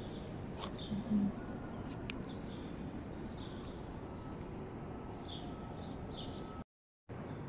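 Outdoor city ambience: small birds chirping on and off over a steady background hum, with a brief low thump about a second in. The sound cuts out completely for about half a second near the end.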